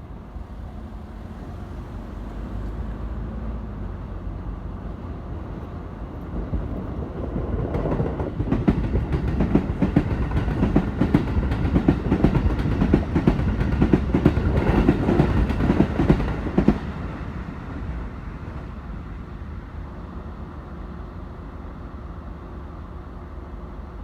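An eight-car Keikyu electric train passes at speed, its wheels clattering rapidly over the rail joints. The sound builds for a couple of seconds, is loudest for about nine seconds, then cuts off suddenly and leaves a low rumble.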